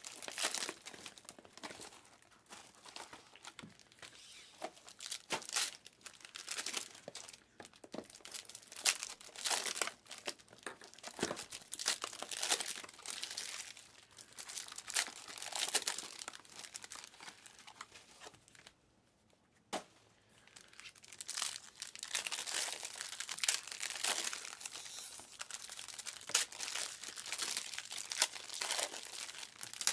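Foil trading-card pack wrappers from Panini Optic Hybrid basketball boxes being torn open and crinkled, in quick irregular bursts. There is a short lull about two-thirds through, broken by one sharp click.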